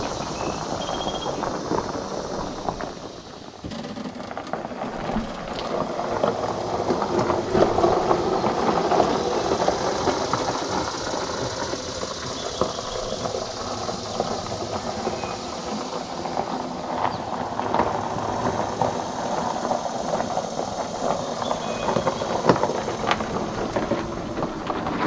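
2018 Club Car Precedent 48-volt electric golf cart driving over a gravel driveway, its tyres crunching steadily on the loose stones, running under power on a newly fitted MCOR-4 motor controller.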